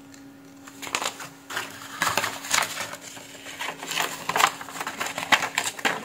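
Paper leaflets and a folded paper manual rustling and crackling as they are handled and unfolded, in a run of irregular crackles starting about a second in.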